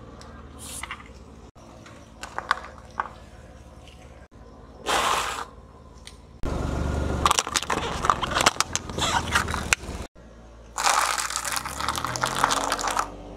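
A car tyre rolling slowly over crunchy foods on asphalt and crushing them: a few scattered crackles at first, then a long stretch of dense crunching and crackling about halfway through, and another loud burst of crunching near the end.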